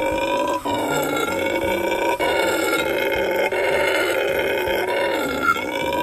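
Guianan red howler monkeys howling: a loud, continuous deep call with a few brief breaks.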